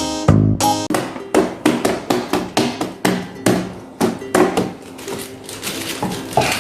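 A quick run of sharp knocks, about three to four a second, each with a short pitched ring; the run grows fainter near the end.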